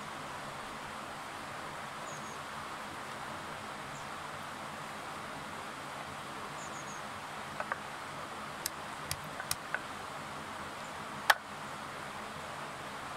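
Steady rush of a shallow river. Over it, a few sharp clicks and taps of a kitchen knife on a wooden cutting board come between about seven and ten seconds in, then one louder knock near eleven seconds as the fish is cut open.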